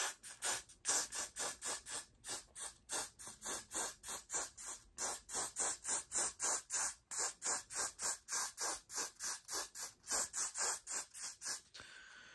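Aerosol hairspray can sprayed in rapid short spurts, about four a second, each a brief hiss, stopping shortly before the end.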